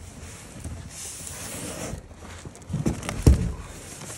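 Cardboard box being opened and its packing handled: flaps rustling and scraping, then a few dull thumps about three seconds in, the loudest of them a single knock.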